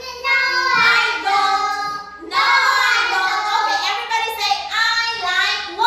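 Children singing together in high voices, with a brief pause about two seconds in.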